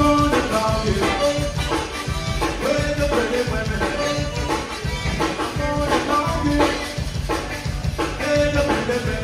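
Zydeco band playing live: a drum kit keeping a steady dance beat under held melody notes.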